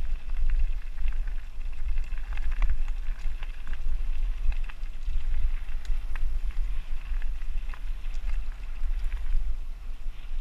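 Mountain bike rolling along dirt singletrack, heard through a camera mounted on the bike or rider. Heavy wind rumble on the microphone sits over the tyre noise, with frequent small clicks and knocks as the bike goes over bumps.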